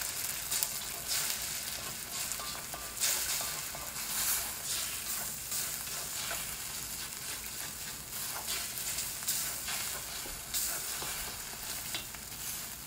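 Beaten egg sizzling in hot oil in a cast iron wok as it scrambles, with a spatula scraping and stirring it in repeated strokes over a steady hiss.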